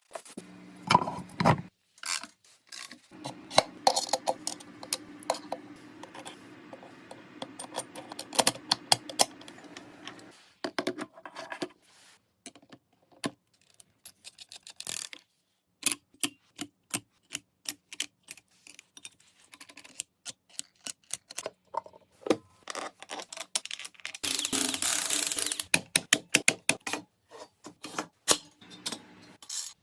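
Workshop sounds of motorcycle parts being restored: many sharp clicks, taps and clinks of hand tools on small metal parts, a steady hum from a small motor for several seconds early on, and a dense hiss for about two seconds near the end.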